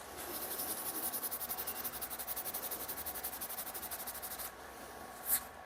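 A cloth rubbing paste wax onto a screwdriver, in fast even back-and-forth strokes of about ten a second, with a short tap near the end.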